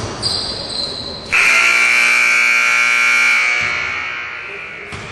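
Basketball gym's scoreboard horn, a loud steady buzz that starts about a second in, holds for about two seconds, then dies away slowly in the hall.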